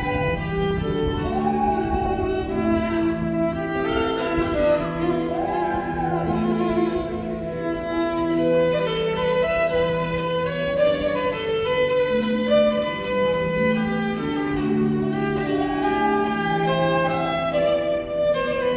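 Violin playing a slow melody with vibrato on its held notes, over steady sustained lower notes.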